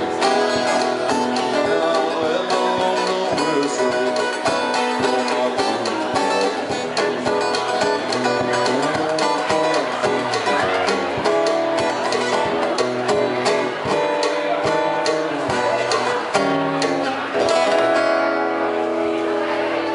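Two acoustic guitars played together, rhythmic strumming and picking in a country tune, ending on a chord left to ring near the end.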